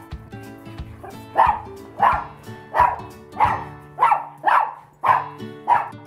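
A dog barking repeatedly, about eight barks roughly two-thirds of a second apart, starting about a second and a half in, over background music.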